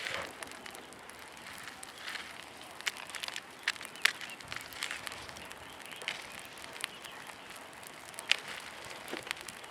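Rows of matches catching fire one after another: a steady fizzing hiss broken by irregular sharp crackles and pops as match heads flare, the loudest about four seconds in and again about eight seconds in.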